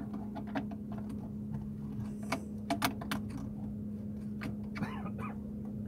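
Irregular light clicks and taps, a dozen or so, over a steady low hum.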